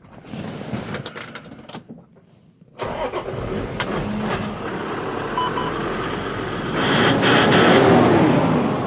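A ute's engine being jump-started: it fires suddenly about three seconds in and keeps running, with a rev that rises and falls near the end.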